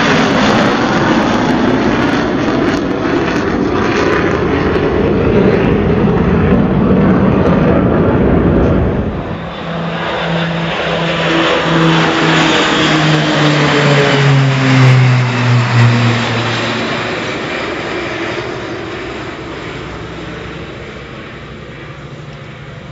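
An Indonesian Air Force BAE Hawk jet trainer flying low overhead with loud jet noise. Then, after a sudden cut, a formation of three propeller-driven trainers passes with an engine and propeller drone whose pitch slides down as they go by, fading as they fly off.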